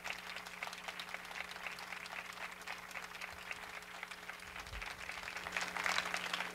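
Audience applauding a performance, a dense steady clapping that swells briefly near the end, over a faint low electrical hum.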